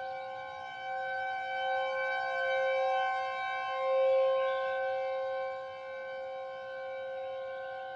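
Civil defense warning siren sounding a steady tone, a chord of several fixed pitches with no rise or fall in pitch. It swells and fades in loudness, loudest about halfway through.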